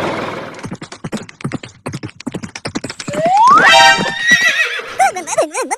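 Horse sound effect: rapid hoofbeats clip-clopping at a gallop, then a loud whinny that rises in pitch about three seconds in. Wavering, warbling calls follow near the end.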